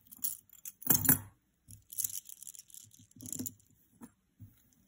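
Chunky acrylic chain-link necklace and its silver-tone metal chain clacking and jingling as it is picked up and handled, in several short bursts, the loudest about a second in.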